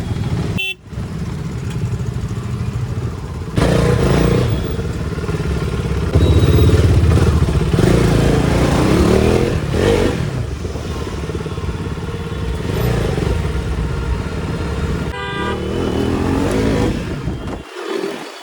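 KTM RC 390's single-cylinder engine running on its stock exhaust while riding, louder from about four seconds in and again around six seconds. Vehicle horns honk briefly twice, near the start and near the end.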